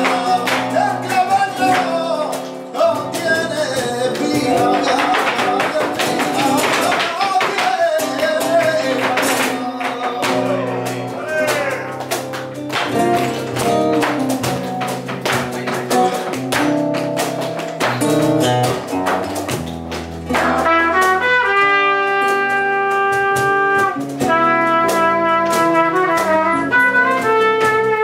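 Live flamenco-jazz ensemble playing a jazzy soleá: guitars under a wavering lead melody in the first part, then a trumpet holding long, steady notes from about twenty seconds in.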